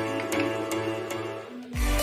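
Background music: a gentle instrumental that changes near the end to a track with a heavy bass beat.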